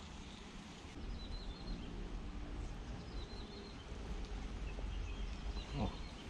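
Outdoor ambience: a steady low rumble with faint, short bird chirps now and then.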